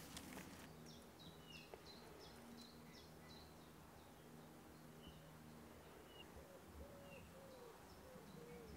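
Near silence of woodland with faint birdsong: small birds giving short, repeated high chirps, and a low cooing call repeating in the second half.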